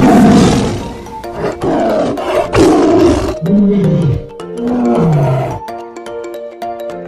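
A big cat roaring: loud rough roars through the first three seconds or so, then two shorter calls that fall in pitch, over background music.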